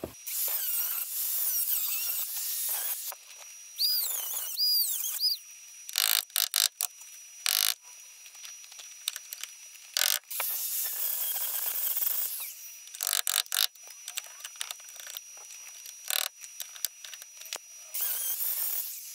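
Angle grinder cutting into the rusty sheet steel of a car's A-pillar in several runs of one to three seconds, its whine dipping and rising as the disc bites. Short sharp taps come between the runs.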